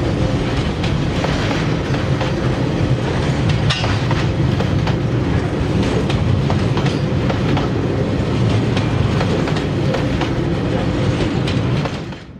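Container wagons of a freight train rolling past on steel rails: a steady wheel-on-rail noise with clicks as the wheels cross the rail joints. It falls away suddenly near the end as the last wagon passes.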